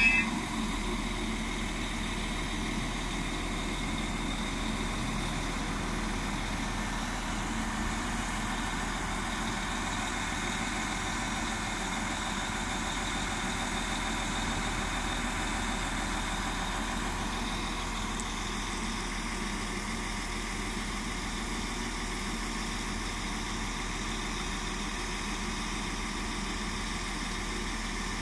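Northern Class 195 diesel multiple unit standing at the platform with its underfloor diesel engines idling, a steady, even hum.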